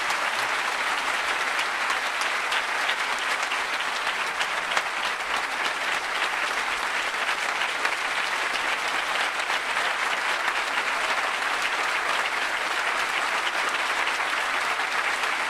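Audience applauding steadily and strongly, a dense sustained clapping that holds at an even level throughout.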